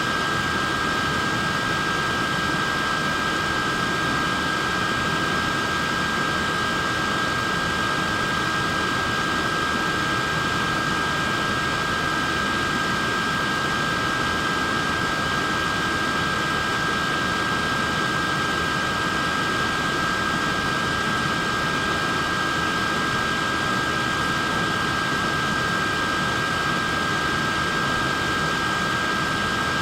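A neck fan running steadily: an even rush of air with a high steady whine from its small motor and blades.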